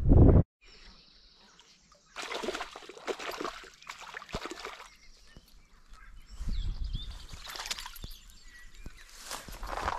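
A hooked perch splashing at the water's surface in a string of irregular splashes as it is played in to the bank. A hand knocks against the microphone at the very start.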